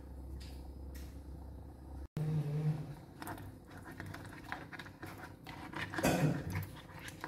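A spatula stirring and scraping through fish heads and coconut-milk gravy in a non-stick wok: a run of short clicks and scrapes from about two seconds in, loudest near six seconds.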